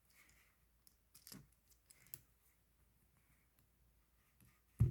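Small plastic building-block pieces clicking and tapping as they are handled and pressed together: a few scattered sharp clicks, the loudest near the end.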